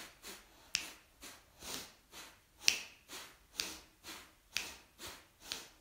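A man doing bhastrika, the yogic bellows breath: quick, forceful inhales and exhales through the nose in an even rhythm of about one full breath a second, each exhale a sharp puff.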